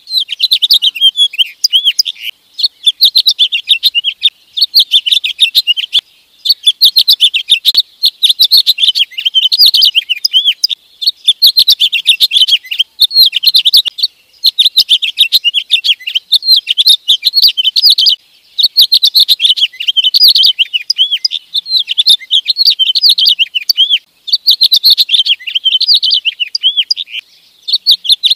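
A finch singing: loud, fast, high warbled phrases a few seconds long, each followed by a short pause, over and over.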